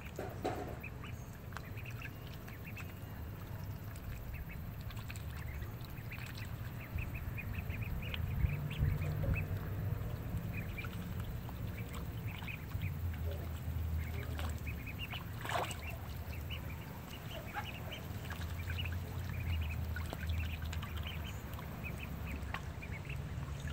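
Ducks calling: many short calls scattered throughout, some overlapping, over a steady low rumble.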